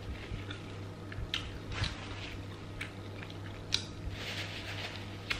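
Close-up chewing of fried chicken, with scattered small wet mouth clicks and smacks. Paper napkin rustling near the end, over a steady low hum.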